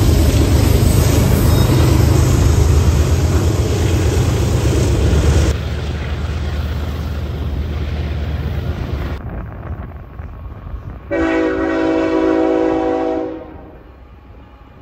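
BNSF freight diesel locomotives passing close by, their engines running loud, then heard from farther off as the train approaches. About eleven seconds in comes one long, steady blast of a locomotive's multi-chime air horn, lasting about two seconds.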